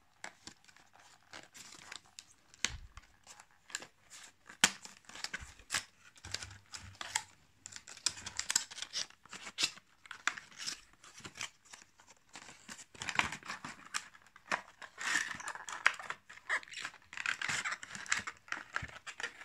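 Cardboard box and clear plastic tray being opened and handled: tearing and scraping of card, crinkling plastic and many sharp clicks. The rustling grows denser and more continuous about two-thirds of the way in.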